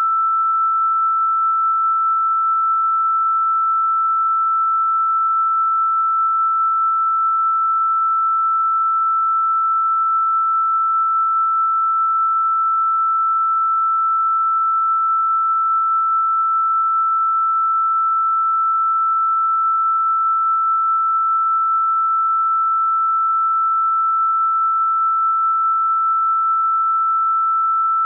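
A single steady electronic sine tone, one pure pitch held without change: a generated 'healing frequency' tone for sound therapy.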